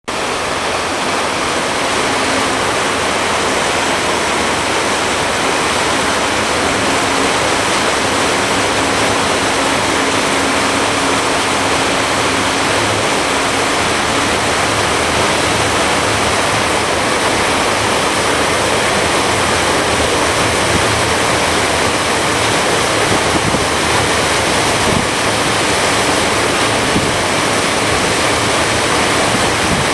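Steady loud rush of water along a moving boat's hull mixed with wind on the microphone, over a low hum. A faint steady tone sounds through the first half.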